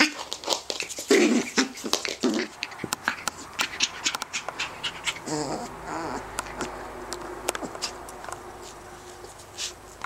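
Rough collie puppy giving short play barks, four in the first two and a half seconds, then a brief wavering whimper about five seconds in, among scattered sharp clicks and taps.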